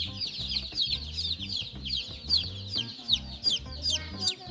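A crowd of baby chicks peeping nonstop: many quick, high, downward-sliding peeps overlapping.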